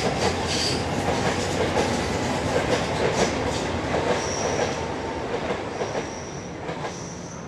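Electric commuter train running along the track, its wheels clattering over the rails, with brief high wheel squeals in the second half as it fades away.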